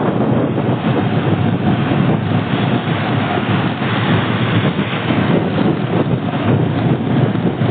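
Steady, loud rumble of vehicle and road noise heard while travelling, with wind buffeting the microphone.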